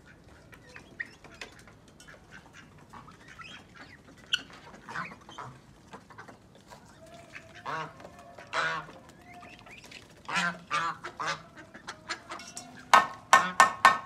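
Domestic ducks quacking in a mixed backyard poultry flock, with short calls scattered through. The calls come more often in the second half, and a quick run of four or five loud calls comes near the end.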